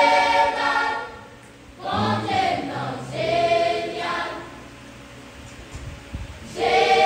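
Girls' church choir singing a gospel song in separate phrases, pausing for about two seconds before the next phrase comes in near the end.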